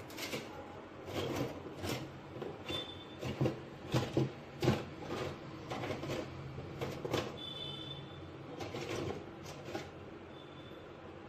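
Irregular knocks and clatter over a low steady hum, with a few short high tones now and then.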